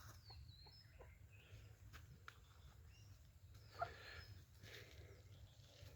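Near silence outdoors: faint, short, falling bird chirps now and then, with a few soft footstep-like knocks, one a little louder just under four seconds in.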